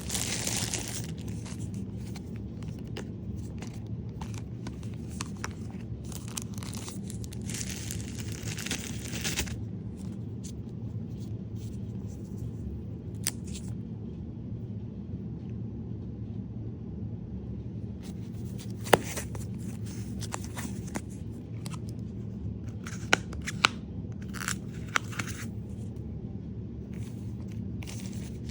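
Packaging being torn open and crinkled by hand in bursts, with a few sharp clicks, over a steady low hum.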